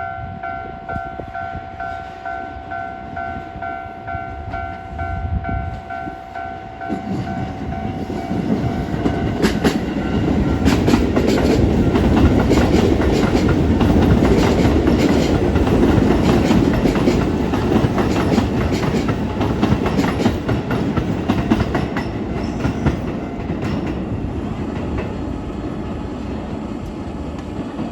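Level crossing warning bell ringing in quick even pulses for the first several seconds. Then a Keisei 3600 series electric train passes close by: a rising rumble with rapid clickety-clack of wheels over rail joints, loudest in the middle, fading away near the end.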